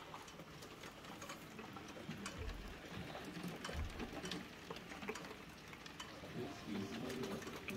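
Rain falling, heard as a steady crackle of scattered, irregular taps and drips. Two dull low thumps come about two and a half and four seconds in.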